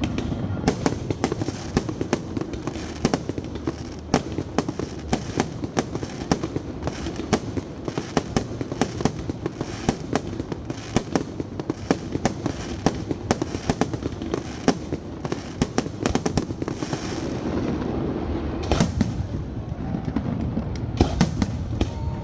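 A fireworks display: dense volleys of sharp cracks and bangs, many a second, over a low rumble. The volleys thin out briefly about three-quarters of the way through, then a few louder single bangs follow.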